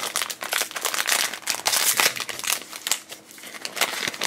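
Foil blind bag being torn open and crinkled by hand: a dense, continuous run of crackles and rustles.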